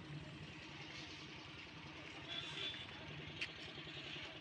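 Faint outdoor street ambience: a low steady hum under a soft hiss, with a single sharp click about three and a half seconds in.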